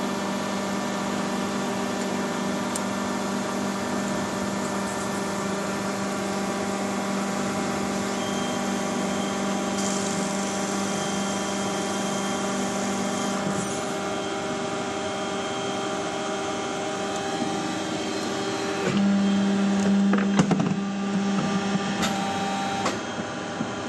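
Friction welding machine running with a steady hum made of several tones. About 19 s in it grows louder for a few seconds, with several sharp clicks, then eases back just before the end.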